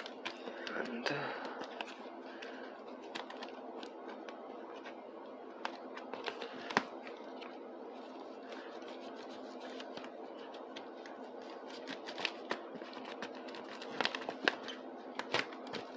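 A knife cutting and working at plastic toy-garage parts: scattered small clicks and scrapes, busier near the end, over a steady low hum.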